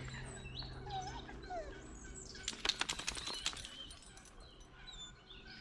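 Small birds chirping in woodland. About halfway through comes a quick run of sharp taps or flutters lasting about a second.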